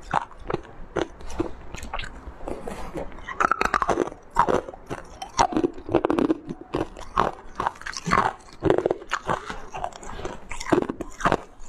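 Chunks of purple coloured ice being bitten and chewed, giving repeated sharp crunches and cracks, with a fast cluster of them about three and a half seconds in.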